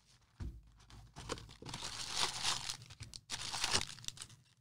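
Foil wrappers of baseball card packs crinkling in irregular bursts as the packs are handled.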